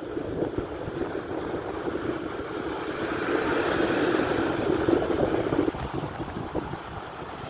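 Wind buffeting the microphone over the sound of Black Sea surf. A wave swells and washes in from about three to five and a half seconds in.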